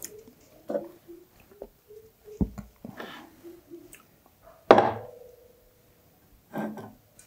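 Aluminium drink cans being handled on a wooden table: scattered light knocks and clicks, a low thud about two and a half seconds in, and a louder clink near the middle that rings briefly.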